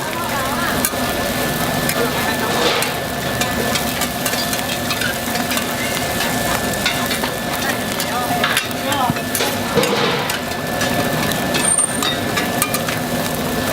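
Food sizzling as it fries on a hot pan, with short clicks and scrapes of cooking utensils, a steady hum and busy voices in the background.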